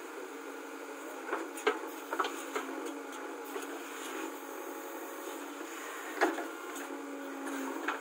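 JCB backhoe loader's diesel engine running steadily as its backhoe arm digs a trench, with a few sharp knocks from the digging, the loudest about six seconds in.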